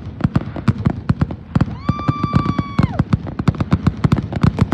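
Consumer fireworks going off in a rapid, continuous run of sharp cracks and pops, many a second. A held high tone sounds over them for about a second, falling away at its end.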